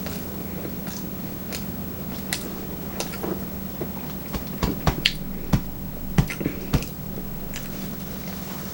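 Close-up eating sounds of someone chewing sushi: scattered wet mouth clicks and smacks, coming thicker and louder from about halfway through, over a steady low hum.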